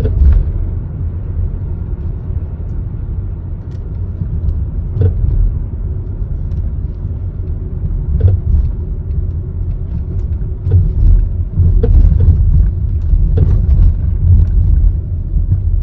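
Volvo V70 driving over uneven road: steady low road rumble with irregular short rattles and knocks from the front-left suspension, a noise the owner suspects comes from a worn top strut mount.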